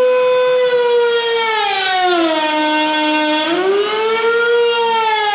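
Wood router motor whining at a high pitch, then bogging down to a lower pitch about one and a half seconds in as the bit cuts into the board's end grain. It climbs back up about two seconds later and starts dropping again near the end as it takes the next pass.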